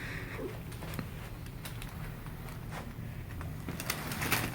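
Faint rustling and a few soft clicks of hands and cloth moving on a chiropractic table, over a low room hum.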